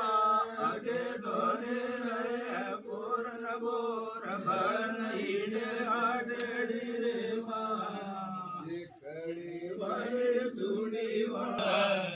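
A man's voice chanting a Banjara ardas prayer in long, held lines, with a short pause about nine seconds in.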